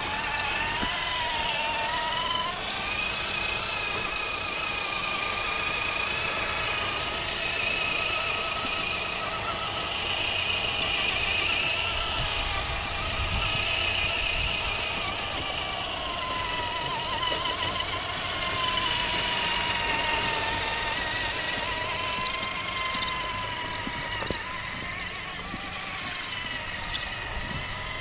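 Traxxas TRX-4 RC trail crawler running on a Deep Terrain Traxx track set, its electric drivetrain giving a steady whine that wavers up and down in pitch with the throttle, over the rattle of the tracks.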